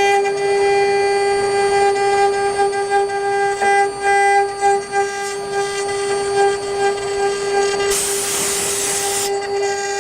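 Spindle of a round-wood engraving CNC lathe running with a steady high whine, wavering in level while it cuts the wood. A burst of hiss sounds about eight seconds in and lasts just over a second.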